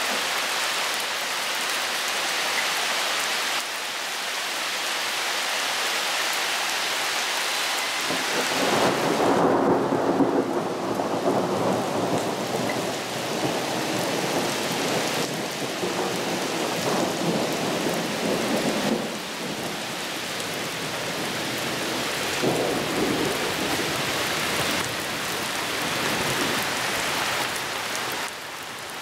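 Heavy rain pouring steadily onto leaves and paving. A long rumble of thunder swells about a third of the way in and dies away some ten seconds later, with a shorter rumble after it.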